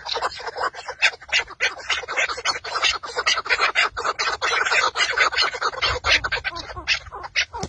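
Chukar partridges calling, a fast, steady run of short clucking notes, about six a second.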